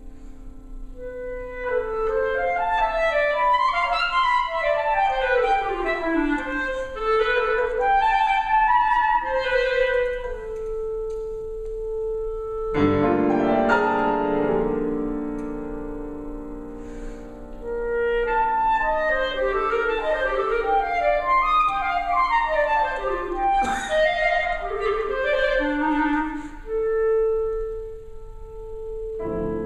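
Clarinet and piano playing contemporary classical music: two passages of fast cascading runs of notes, long held notes, and a loud struck piano chord about 13 s in with another near 24 s.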